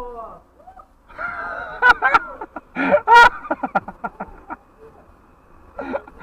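A person's voice in short broken phrases, with no clear words.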